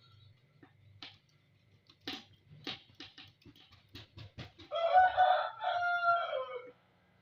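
Rooster crowing once, one two-part call of about two seconds that drops in pitch at the end, following a run of sharp clicks.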